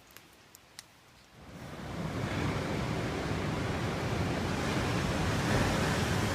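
A couple of faint clicks, then a steady rushing noise that swells in over about a second and holds at an even level, like wind or moving water.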